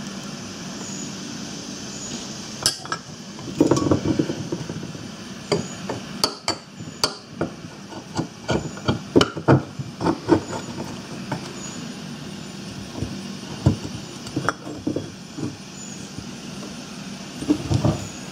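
Sharp metallic clicks and taps as a Briggs and Stratton starter motor's armature is slid back into its magnet-lined steel housing, parts knocking and snapping against the case, with a brief scraping rustle about four seconds in. The taps come thickest between about three and eleven seconds in, then only now and then.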